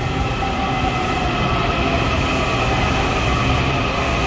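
Washington Metro subway train pulling into an underground station and running past along the platform: a steady, loud rumble of wheels on rail with a faint steady whine over it, echoing under the vaulted concrete ceiling.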